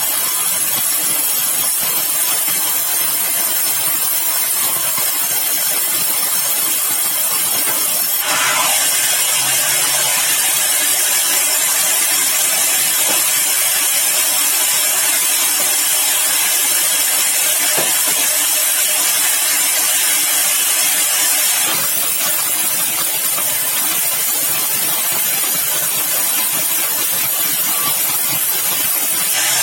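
Sawmill machinery running with a steady, hissing noise. It becomes louder and brighter about 8 seconds in and drops back about 22 seconds in.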